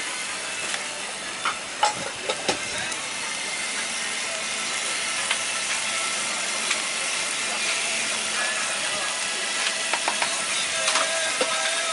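Raw chicken pieces frying on a hot flat-top griddle, a steady sizzling hiss, with a few sharp metal clinks of utensils about two seconds in.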